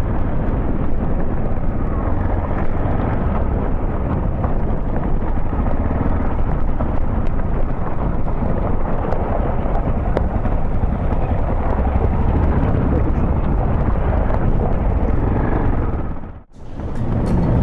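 Motorcycle engine running and wind buffeting the microphone of a bike-mounted action camera while riding, a dense, steady low rumble. About a second before the end the sound drops out briefly and a brighter recording of the ride takes over.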